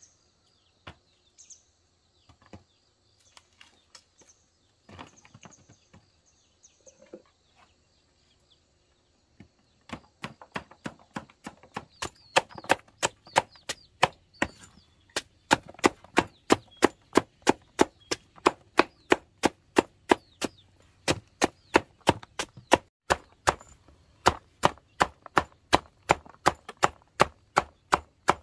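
Machete chopping fresh cassava roots into slices against a wooden block: after a few faint clicks, a steady run of sharp knocks about two to three a second starts about ten seconds in.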